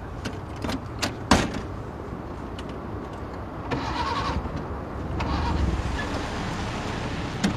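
Old minivan's engine being cranked without catching: the van has broken down and still won't start. A few sharp clicks and a loud knock come in the first second and a half, and a low rumbling swells from about five seconds in.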